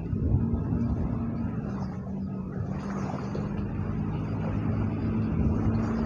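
An engine running steadily, a low hum with rumble underneath, growing slightly louder.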